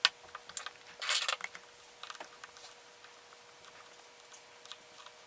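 A small screwdriver and tiny screws being worked at the bottom of an iPhone 4: a sharp click at the start, a brief rattling scrape about a second in, then scattered faint ticks.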